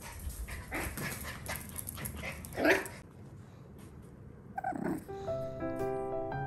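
A Norfolk terrier puppy gives a short whine that falls in pitch, then a second, shorter one about two seconds later. Light piano music comes in near the end.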